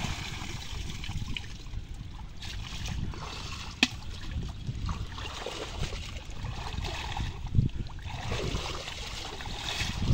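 Water sloshing and splashing as people wade through shallow muddy water and move bamboo fish traps, with a couple of sharp knocks, about four seconds in and near eight seconds.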